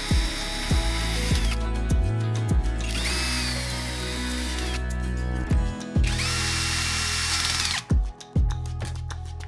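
An electric power tool's motor runs in three short bursts of about two seconds each. Each burst has a high whine that climbs as the motor spins up and drops as it stops. Background music with a steady beat plays throughout.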